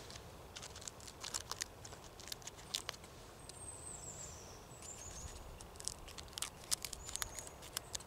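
Small scissors of a Gerber Bear Grylls multitool snipping a dry leaf: a scattered series of quiet sharp clicks and crackles. A bird chirps a few times with short high falling notes.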